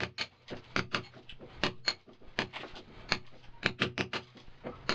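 Mallet striking a chisel into a masonry wall, chipping out a channel for a water pipe: a quick, uneven run of sharp blows, several a second.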